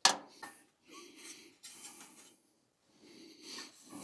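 A sharp metallic clink of a hand tool, then three short rasping breaths from a person straining while wrenching on the engine's fan bolts.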